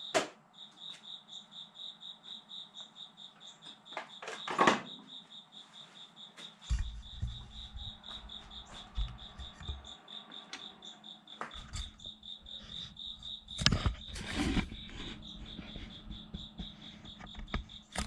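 A cricket chirping steadily in rapid, even pulses, about four or five a second. Several loud knocks and thumps of equipment being handled break in, loudest about four and a half seconds in and around fourteen seconds in.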